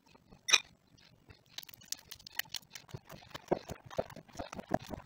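Hands squeezing and kneading soft pie-crust dough in a bowl: rapid, irregular sticky squelching that starts about a second and a half in and gets busier. A single sharp click sounds about half a second in.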